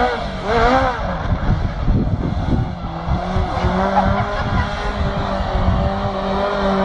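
Stunt car's engine revving up and down in quick swoops as it spins tight doughnuts, with tyres squealing on tarmac. From about three seconds in, the engine holds a steady note as the car keeps circling.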